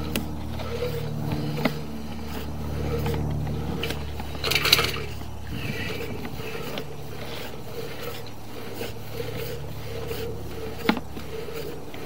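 Sewer inspection camera's push cable being fed off its reel into the line: scraping and scattered clicks over a steady low hum, with a louder rustling scrape about four and a half seconds in and a sharp click near the end.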